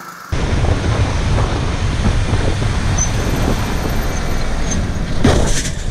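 Motorcycle riding noise picked up by a bike-mounted camera: wind rushing over the microphone, heaviest in the low end. It starts abruptly a moment in, and a short louder gust comes near the end.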